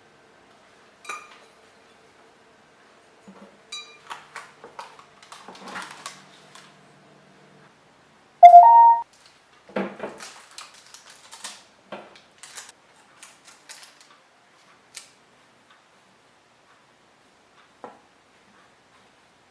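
Kitchen utensils and dishes clinking and knocking in scattered taps, over a faint steady hum. About eight and a half seconds in comes one short, loud tone that steps up from a lower to a higher pitch.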